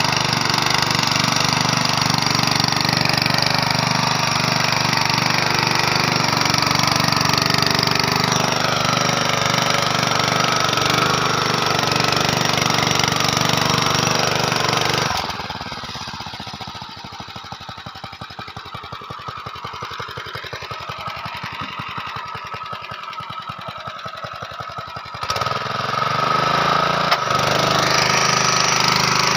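Honda GX160 5.5 hp single-cylinder four-stroke engine running steadily at working speed, then dropping back to a slow, lumpy idle about halfway through and picking up again about ten seconds later.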